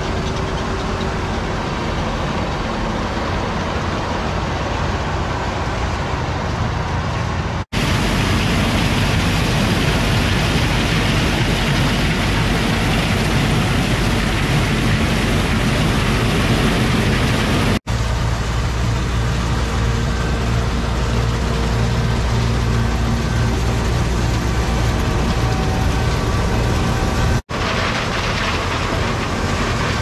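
Older John Deere combines harvesting, their engines and threshing machinery running steadily. The sound comes from several clips joined by three brief dropouts, about a quarter, just over halfway and near the end.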